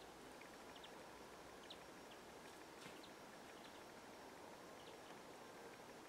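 Near silence with a faint even hiss, dotted with a few faint, short, high chirps from small birds at a distance.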